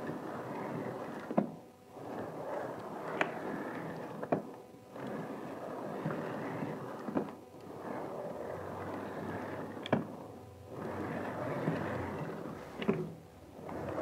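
Rovin Ecospin hand-cranked washing machine being worked back and forth, water and clothes sloshing round the drum in surges of a couple of seconds each, with about five sharp clacks between surges.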